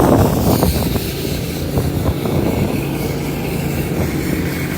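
Street ambience: a vehicle engine running with a steady low hum, with wind buffeting the microphone.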